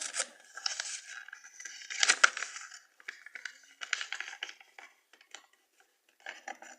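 A sheet of paper rustling and crinkling in bursts as it is folded and creased by hand, with a louder burst about two seconds in.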